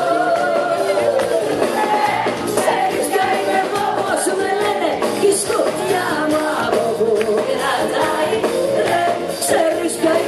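A woman singing a Greek pop-rock song live into a microphone over her band, with a long held note at the start.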